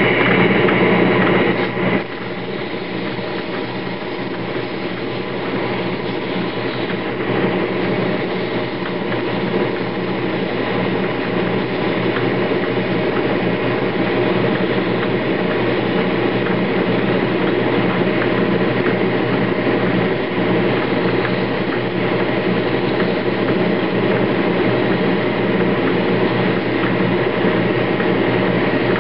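Metal lathe running steadily, a machine-turned replacement bearing spinning in the chuck while emery paper is held against it to polish its finish. The running noise comes up just before the start and is louder, with a higher whine, for the first two seconds, then settles to an even drone with steady tones.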